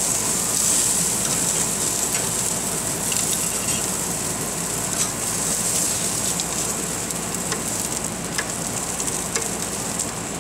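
Salmon fillets sizzling skin side down on a hot grill grate, a steady hiss with scattered small pops and crackles.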